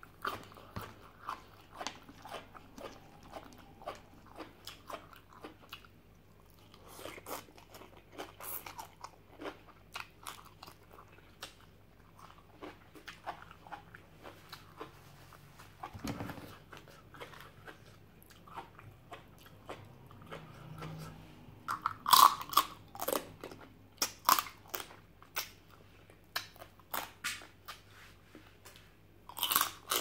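A person chewing and crunching a mouthful of mixed-seafood papaya salad close to the microphone: irregular crisp crunches and wet mouth sounds, with a louder run of sharp crunches about two-thirds of the way through.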